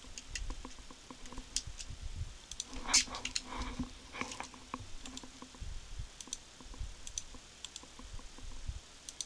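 Computer mouse clicks and a few keyboard key presses, scattered and irregular.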